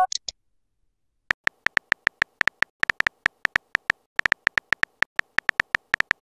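The end of a short electronic chime, then a quick run of simulated keyboard clicks from a texting-story app as a reply is typed, starting about a second in at roughly five clicks a second.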